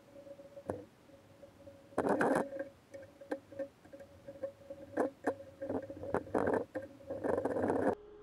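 Small clamps being handled and fitted onto a glued-up wooden box on a workbench: scattered clicks and knocks, with denser rattling about two seconds in and again near the end, over a faint steady hum.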